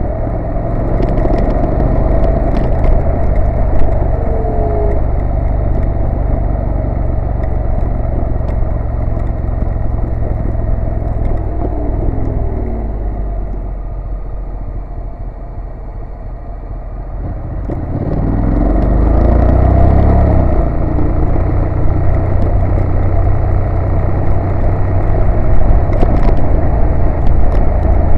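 Honda NC750S parallel-twin engine running under the rush of wind on a moving motorcycle. About halfway through the engine note falls away as the bike slows for a bend, then climbs in pitch as it accelerates out again.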